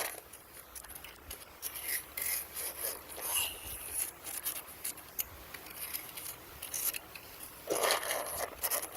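Irregular scraping and rubbing noises, with a louder burst of scraping near the end.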